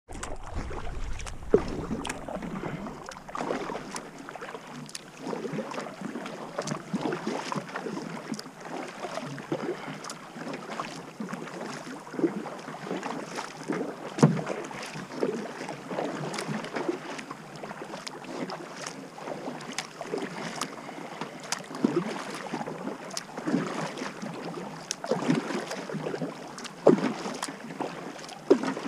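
Kayak paddle strokes in calm lake water: the blades dip and splash every second or two, with water trickling and dripping between strokes.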